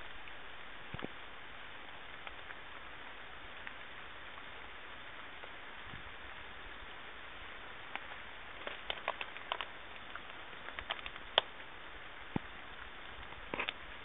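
Steady rain hiss, with scattered sharp ticks of drops falling from about eight seconds in.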